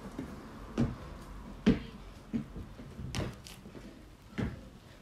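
Dull knocks and thuds from a person exercising with a wooden plyo box and a kettlebell: feet landing on the box and patio and the kettlebell being handled, about five impacts at uneven intervals, the loudest a little before halfway.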